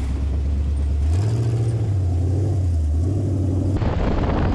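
Fast attack vehicle (militarized dune buggy) engine running under way, a low drone whose pitch steps up about a second in and drops back twice. Near the end the sound turns rougher and noisier.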